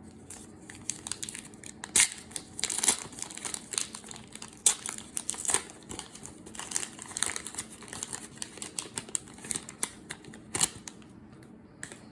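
Trading card pack wrapper being torn open and crinkled by hand: dense crackling with several sharper snaps, the loudest around two seconds in and near the end.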